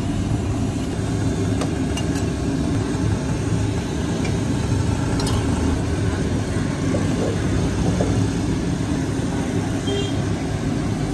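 Steady low rumble of open-air street noise, with a few faint sharp clicks about two seconds in and again about five seconds in.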